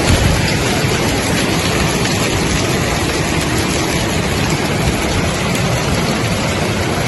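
Heavy hail pelting down in a dense, steady hiss of countless impacts.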